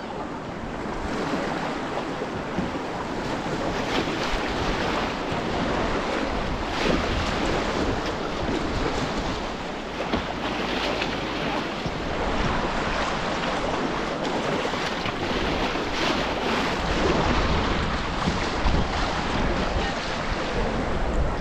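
Rushing river whitewater, a steady dense wash of water, with wind buffeting the microphone in a low rumble.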